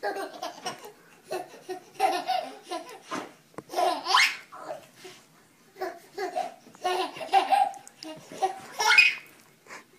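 A baby laughing in short bursts of giggles, with high squeals about four seconds in and near the end.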